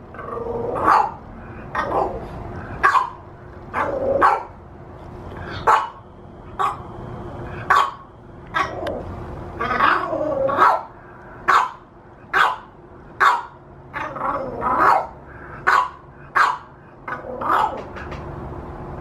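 French bulldog puppy barking in short, sharp yaps about once a second while lying on its side, with a few barks drawn out into rising and falling whines.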